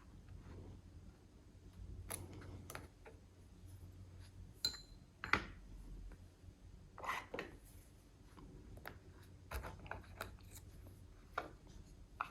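Faint, irregular small metal clicks and scrapes as the C-clip is worked off the core of an American 1100 padlock.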